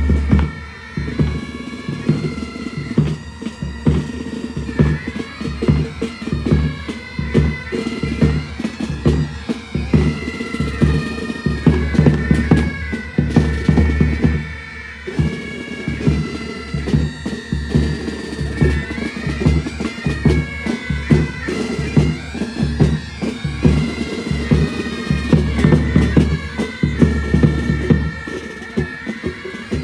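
Military pipe band playing: bagpipes sounding a melody over a steady drone, with drums beating a regular rhythm underneath.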